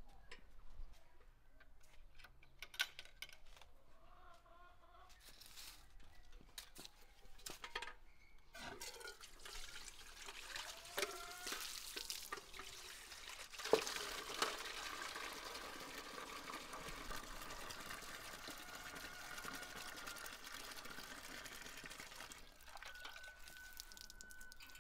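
Water running from an outdoor tap and splashing into and over a metal bowl as it is rinsed, steady through most of the second half, with a sharp knock about halfway. Before that, chickens clucking and scattered clicks.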